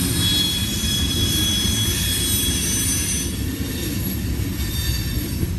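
Freight train rolling past: a steady low rumble of wheels on rail, with thin high-pitched wheel squeal that fades out a little after halfway.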